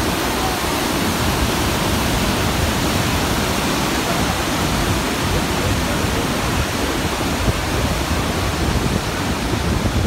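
Steady rush of Niagara Falls' water crashing close by, a dense even noise with no let-up.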